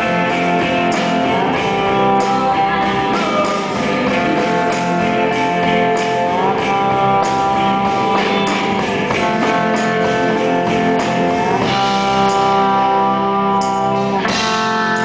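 Live band music, an instrumental passage led by electric guitar, with long held notes that slide up and down in pitch every few seconds over a steady beat.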